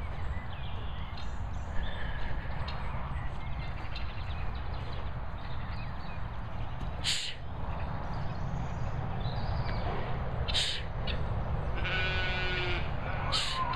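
Domestic helmeted guinea fowl calling: two short harsh cries midway and a rapid pulsing chatter near the end, over a steady rumble of wind on the microphone.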